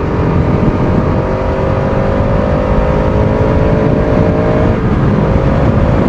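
Bajaj Pulsar RS200's single-cylinder engine running under way, its pitch rising slowly for about five seconds, then dropping and holding steady near the end. Heavy wind rumble underneath.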